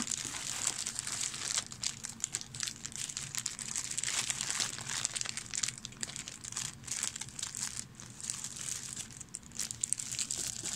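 Small clear plastic bags of miniatures crinkling and rustling as a hand rummages through a box of them and pulls out a handful: an irregular run of crackles.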